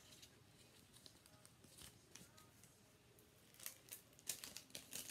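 Faint rustling and crinkling of nail sticker sheets being handled, with sharper crackles from about three and a half seconds in.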